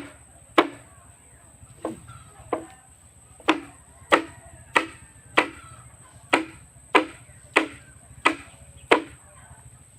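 Chopping with a blade: about a dozen sharp strokes at a steady pace, a little faster than one a second, stopping near the end.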